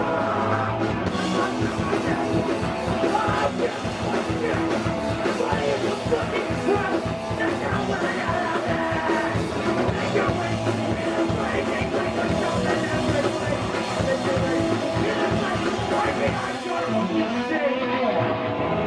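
Hardcore punk band playing live at full volume: distorted electric guitars and fast drums, with shouted vocals. The sound thins out in the highs near the end.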